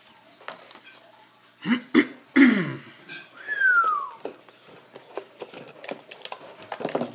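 Plastic packaging being handled and pulled apart, a scatter of small clicks and crinkles, with a loud cough twice around two seconds in and a short squeak that falls in pitch a moment later.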